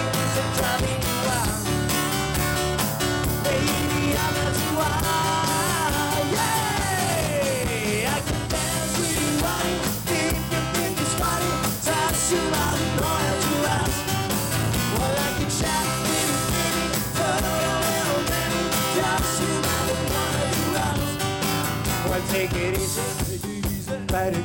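Live rock band playing through a PA: acoustic guitar, electric bass and keyboard, with a singer.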